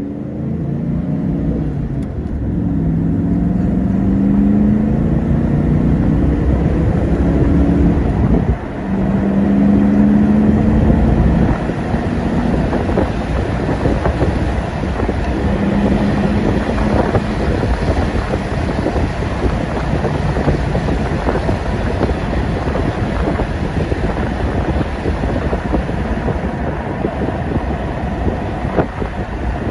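1994 Ford Mustang SVT Cobra's 5.0-litre V8 heard from inside the car while driving. The engine pulls up through the revs, with a brief drop about eight and a half seconds in like a gear change, then settles to a steady cruise under road and wind noise.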